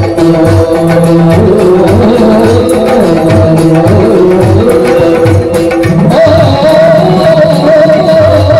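Yakshagana background ensemble: a maddale barrel drum playing a steady rhythm under held melodic notes. About six seconds in, a high wavering held note enters, the bhagavata's singing.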